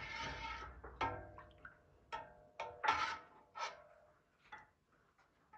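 A kitchen utensil knocking and scraping against a pot about six times, short sharp clinks with a brief ring, as fat is skimmed off boiled chicken broth.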